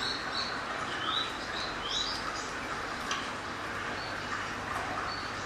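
Small bird chirping in short, high notes: a quick run of chirps at the start, two rising chirps about two seconds in, then scattered single notes. A steady low hum comes in about four seconds in.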